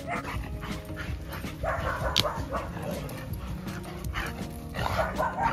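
Dog barking in short bursts, about three times, about two and five seconds in and at the start, over quiet background music.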